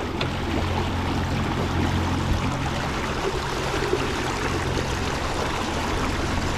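Water rushing and splashing in the wake of a fishing kayak under way on its electric motor, over a steady low hum from the motor.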